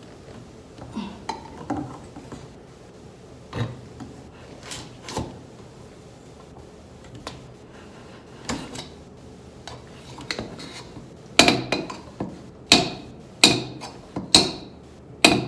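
Metal clacks and knocks as a flattened metal selfie stick is forced and levered as a makeshift pry bar against something stuck shut. Scattered knocks at first, then, about three quarters of the way in, a run of louder, sharper knocks less than a second apart.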